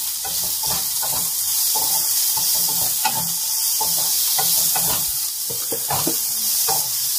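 Chopped vegetables sizzling in hot oil in a kadai, a steady hiss, while a wooden spatula stirs them with repeated scrapes and taps against the pan.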